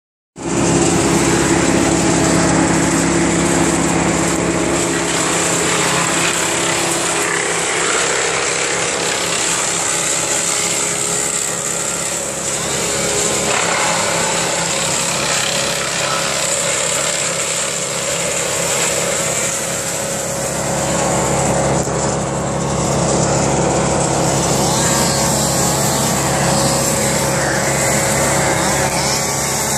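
Small gasoline engine of land-clearing equipment running steadily at working speed, its pitch shifting slightly partway through.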